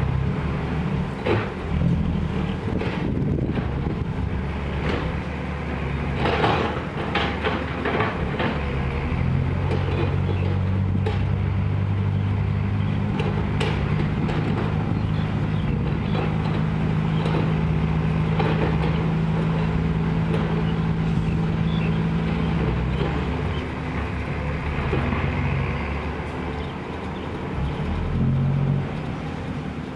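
Isuzu six-wheel dump truck's diesel engine: for the first several seconds it creeps over rough ground with knocks and rattles from the body, then it is held at a steady raised speed for about twelve seconds while the hydraulic hoist tips the dump bed up, and it eases off near the end.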